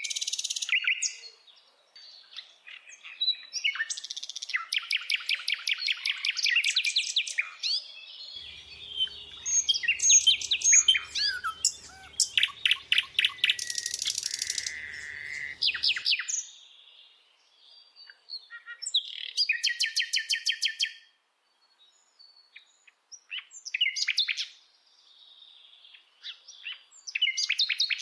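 Birds singing: bursts of rapid trills and short high chirps, sometimes overlapping, with brief pauses between phrases. A faint low hum sits under the song from about 8 to 16 seconds in.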